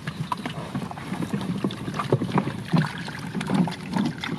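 Irregular splashing and sloshing in shallow rice-paddy water, many short slaps and gurgles, as hands grope in the water for catfish.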